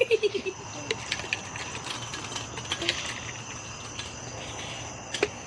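Crickets chirping steadily, with scattered small clicks and one sharper click near the end.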